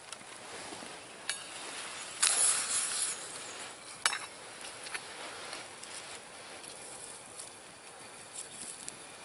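Small wood campfire crackling under a lidded metal canteen cup of water heating toward a boil, with a few sharp pops and a louder scuffing noise lasting about a second, two seconds in.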